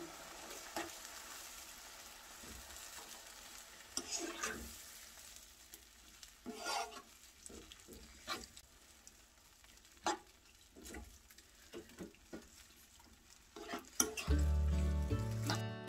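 A utensil stirring and scraping a wet ground-meat and vegetable sauce in a nonstick frying pan, with scattered scrapes against the pan over a faint simmering sizzle. Acoustic guitar music comes in near the end.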